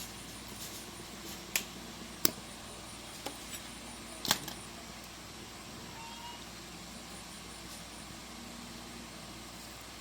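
A handful of short, sharp clicks and taps of hand tools and metal parts being worked on, five of them within the first half, over a steady faint hiss.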